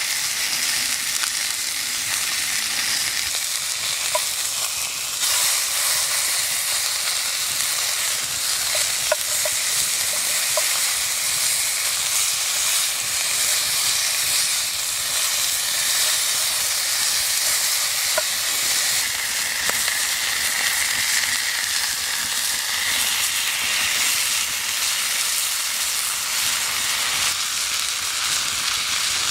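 Meat frying with a steady sizzle and an occasional small pop of spattering fat.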